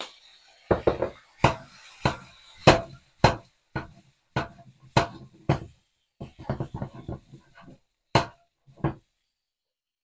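A utensil knocking and scraping against a wok as stir-fried whitebait is tossed: an irregular run of sharp knocks that stops about nine seconds in.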